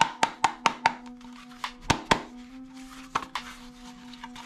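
Sharp plastic clacks and knocks as a plastic toy hatchet is handled among plastic toy weapons in a cardboard box. A quick run of about five knocks comes in the first second, then a few scattered ones. Background music with a steady held tone plays underneath.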